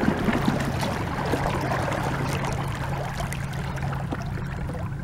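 Water rushing and splashing against a small boat's hull as it moves over calm water, with a steady low hum beneath.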